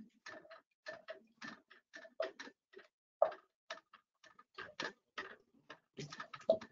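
Wooden spoon stirring thick curry sauce in a pot: a faint, irregular run of light knocks and clicks, several a second, as the spoon strikes and scrapes the pot.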